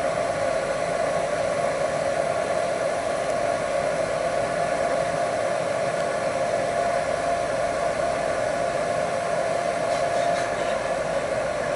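Boat engines running steadily: an even hum with a constant whine over a rushing hiss.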